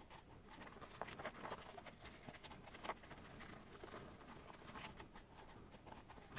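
Faint rustling, rubbing and a few soft taps as hands squeeze and flex a Pro-Line BFGoodrich KM3 rubber crawler tire to seat a foam insert inside it.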